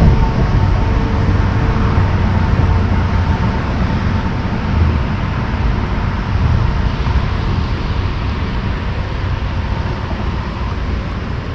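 Wind buffeting the camera microphone: a loud, steady rumbling noise that eases slightly near the end.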